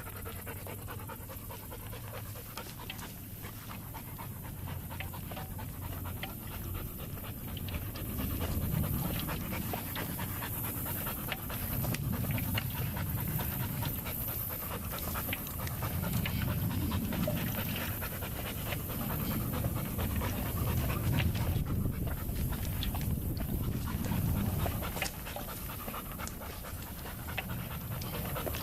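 Dog panting hard in a steady rhythm, with scattered rustles and clicks throughout.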